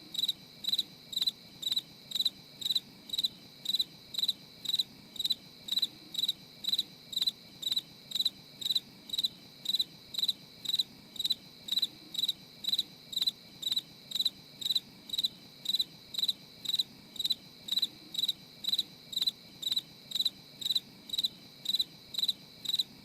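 A cricket chirping in an even, unbroken rhythm of about two high chirps a second.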